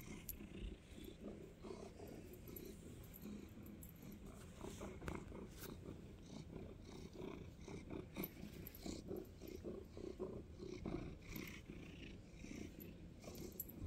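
Domestic cat purring steadily while being stroked, with a few light clicks over the purr.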